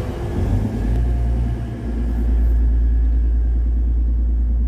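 TransPennine Express Class 185 diesel multiple unit moving away along the platform, its underfloor diesel engines giving a deep, steady rumble. The higher sounds fade after about two seconds as it draws off.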